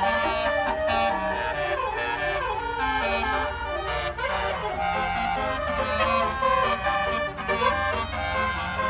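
A bus's Basuri telolet multi-note air horn playing a melody, its notes changing and sliding in pitch, over the low rumble of the bus engine.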